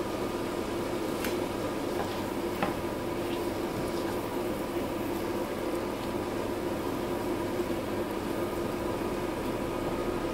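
Seafood, onion and carrot frying in oil in a pan, a steady sizzle with a constant hum under it, while a plastic spatula stirs them with a few light clicks against the pan.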